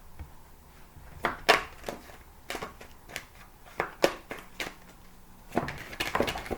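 Oracle cards being shuffled and handled, giving irregular sharp taps and clicks, with a denser flurry of card noise near the end.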